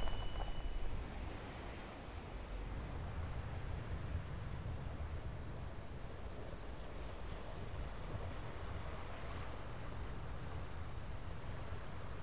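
Night-time insect ambience: a pulsing high trill that stops about three seconds in, then single high chirps at a slow, even pace over a steady low rumble.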